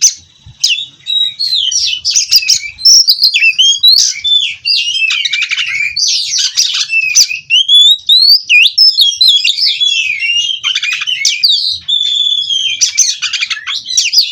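Oriental magpie-robin (kacer) singing a long, unbroken rolling song of rapid notes and whistled glides, after a brief pause right at the start.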